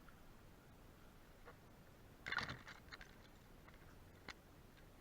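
Near silence, broken by one brief crunching rustle about halfway through and a single sharp click near the end.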